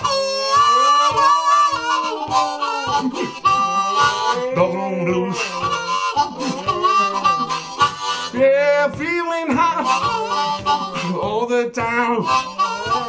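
Harmonica played cupped in the hands in an improvised blues, with a dog howling along in long notes that glide up and down.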